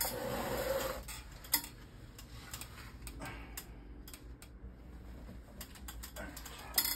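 Light ticks and clicks of plastic craft items being handled on a silicone work mat, with a short scuffing noise in the first second.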